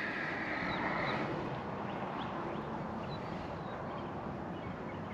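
Steady wind noise on the microphone, with faint, scattered bird chirps.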